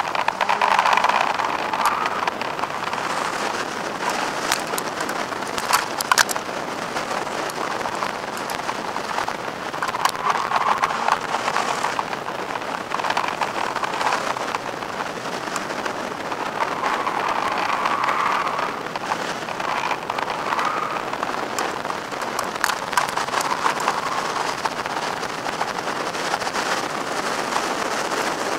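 Wind and road noise rushing over a roof-mounted camera on a Mazda RX-7 (FD3S) driven hard up a hillclimb course: a steady loud hiss with scattered sharp crackles, swelling several times as the car runs through the bends.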